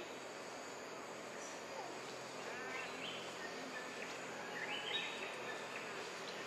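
Steady outdoor insect drone with a faint high whine, and short stepped chirping calls twice, about two and a half and four and a half seconds in.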